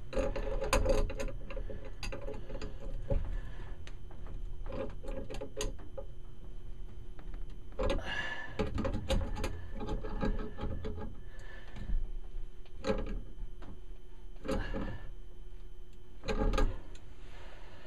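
Irregular clicks, taps and scrapes of metal parts as washing-machine hose couplings are screwed and tightened onto brass fittings at a washer outlet box. Some clicks come in quick runs.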